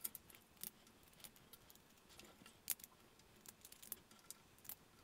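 Near silence with faint, scattered clicks and light taps, the strongest a little before the three-second mark, from handling a 3D-printed plastic robot-arm wrist assembly with metal screws.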